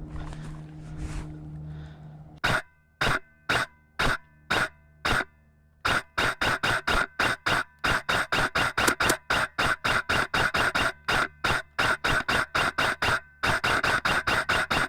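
Airsoft gun firing semi-automatic shots, each a sharp snap with a brief ringing tone. A few single shots come about half a second apart, then a fast steady string of about four shots a second, then after a short pause another quick string.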